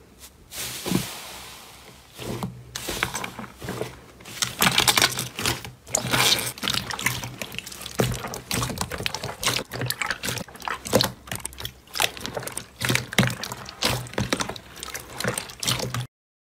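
Slime being squeezed, poked and stretched by hand, giving a dense, irregular run of sticky wet crackles and squelching pops. It cuts off abruptly near the end.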